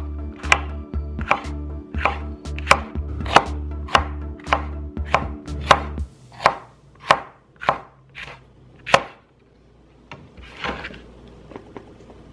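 Chef's knife chopping mini sweet peppers on a wooden cutting board: sharp knife strikes on the board, about three a second, slowing after about six seconds and stopping a few seconds before the end.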